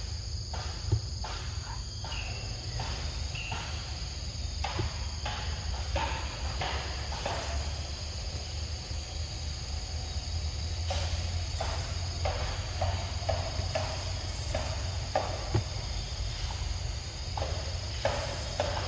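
A steady high-pitched drone of insects buzzing, with a low rumble underneath and scattered brief rustles and taps close by in the grass and dry leaves.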